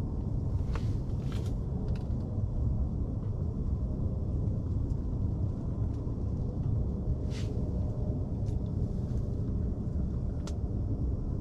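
Steady low rumble of background noise, with a few faint brief ticks.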